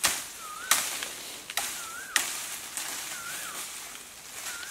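Sharp chops of a blade cutting into bamboo, several strikes at uneven intervals. A bird repeats a short rising-and-falling whistled call about every second and a half.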